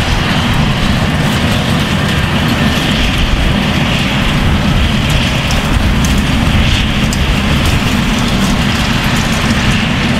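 Farm machinery running steadily at work: a Claas Jaguar forage harvester chopping grass and tractors working close by. A Massey Ferguson tractor with a rotary rake passes near the camera.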